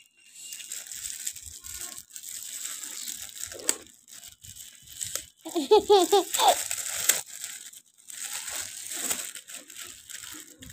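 Thin plastic bag crinkling and rustling as it is untied and pulled open by hand around a loaf of bread. A short high-pitched voice cuts in about halfway through.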